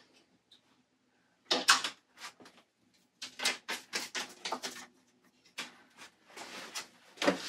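Clothes being handled: fabric rustling with light knocks as garments are picked up, moved and set down, in irregular short bursts.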